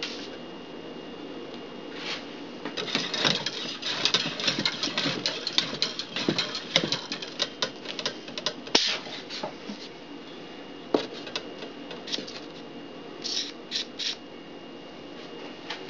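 Crinkling and rustling of a plastic bag over a finger spreading tubular-tire glue around a bicycle rim, with small clicks and taps as the wheel is handled. It is busiest in the first half, then thins out to scattered clicks.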